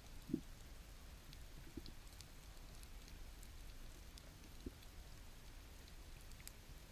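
Faint underwater ambience picked up by a GoPro: a low steady hiss and rumble with scattered tiny high clicks and three dull low knocks, the loudest near the start.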